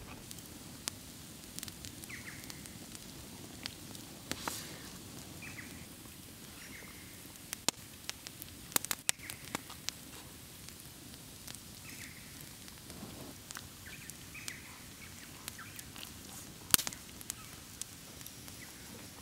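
Close-up eating sounds: a man chewing beef rib meat, with scattered sharp clicks and taps from a knife working on the rib bones, a cluster of them midway and the loudest near the end.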